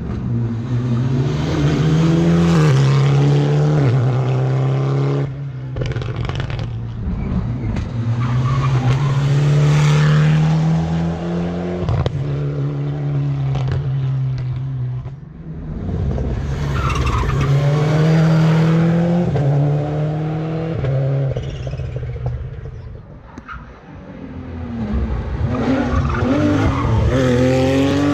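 Rally cars driven flat out on a tarmac special stage, passing one after another in about four loud stretches; each engine climbs in pitch through a gear and drops at every upshift.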